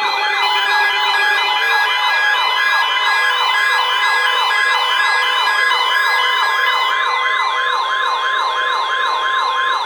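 Electronic siren in yelp mode: a fast rising-and-falling wail repeating about three times a second, over a steady high tone.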